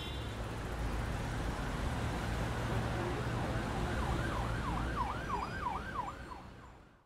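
Steady street background noise with a low hum, and about four seconds in a siren wailing in quick rising-and-falling sweeps, about three a second, for roughly two seconds before the sound fades out.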